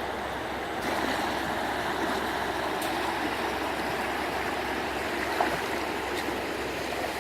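Water rushing and trickling, a steady noise that grows a little louder about a second in, with one faint click past the middle.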